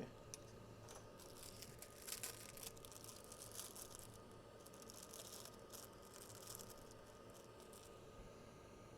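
Faint crinkling and rustling in short irregular bursts, over a low steady hum.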